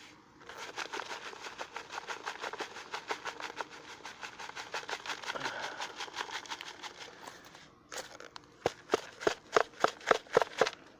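Rapid scratching and rustling of hands digging through dirt in a bait container in search of worms. About eight seconds in, it turns to louder, sparser crunching clicks.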